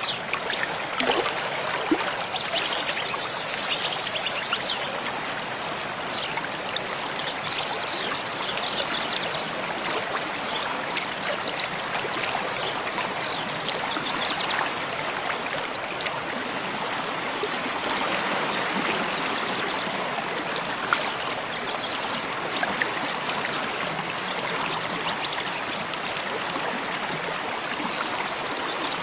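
Mountain stream flowing steadily over rocks, a continuous rushing and trickling, with faint short bird chirps now and then.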